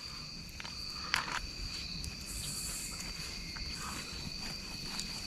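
Insects, likely crickets, chirring steadily in a high, even pitch, with a few faint clicks of handling, one sharper about a second in.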